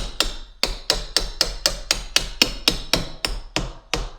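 Rapid hammer taps, about five a second, driving a part into place on a truck tool box; the strikes grow fainter near the end.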